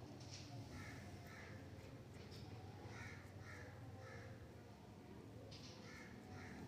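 Crows cawing faintly, a series of short calls in small groups, over a low steady hum.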